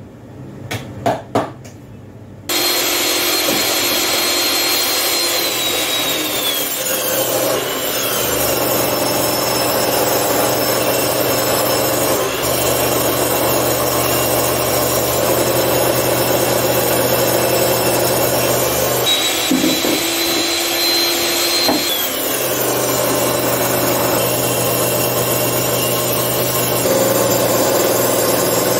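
Table saw ripping a long wooden board: a few wooden knocks, then the running saw sets in suddenly about two and a half seconds in with a high steady whine that drops in pitch as the blade takes the cut. About two thirds of the way through the whine rises again for a few seconds, then drops once more as cutting resumes.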